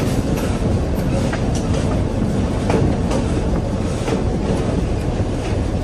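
EMD CF7 diesel locomotive rolling along the track, heard from the open cab doorway: a steady engine and running-gear rumble with irregular clicks and clacks of the wheels on the rails.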